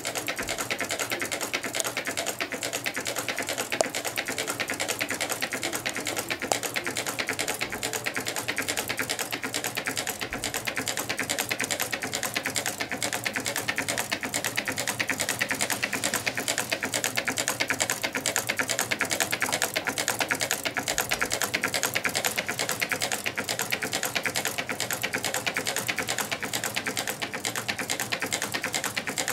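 Meccano-built twin-cylinder Stirling engine running, with a rapid, steady clicking. The clicks are its displacers landing at each end of their travel, which the builder does on purpose for maximum performance.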